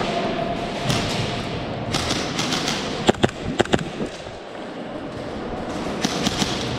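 Short clusters of sharp clicks and knocks, about two seconds in, several around three seconds in and a few more about six seconds in, over a steady background rush: the sounds of an airsoft game in play.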